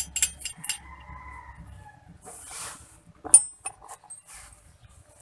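Small metal parts and tools clinking and tapping: a quick run of clinks at the start, then one loud ringing clink about three seconds in. A faint drawn-out call sounds about a second in, and there is a short hiss in between.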